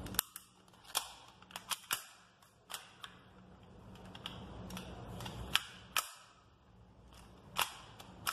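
Sharp metallic clicks and snaps from a full-metal spring airsoft Colt 1911 pistol (Crosman Game Face GFM311) as its slide is racked and the mechanism worked, about a dozen separate clicks, the loudest about five and a half seconds in.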